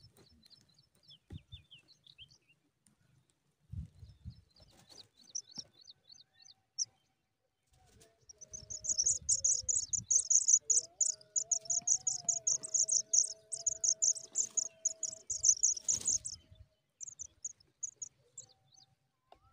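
Pipit nestlings begging for food: a fast, dense run of high-pitched peeps for about eight seconds in the middle while an adult feeds them, with softer scattered cheeps before and after. A faint steady hum runs under the begging, and a short thump comes just as it stops.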